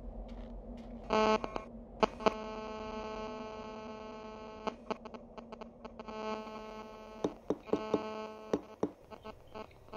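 Electronic interference on a receiver: a low steady hum under a harsh buzz that cuts in about a second in, holds for a few seconds, drops out and returns as a stutter of sharp clicks. It is the kind of buzz a mobile phone causes in nearby audio equipment.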